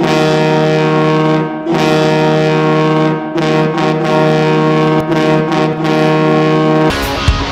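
Hockey arena goal horn blowing one long, steady, deep blast that dips briefly twice. Near the end the blast cuts over to a rock goal song with electric guitar and drums.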